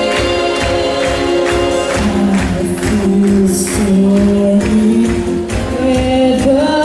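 Backing music with a steady beat of about two a second, tambourine and long held notes that shift in pitch.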